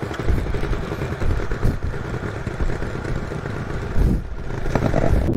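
Honda CB500X's parallel-twin engine running as the motorcycle is ridden, with a thump about four seconds in.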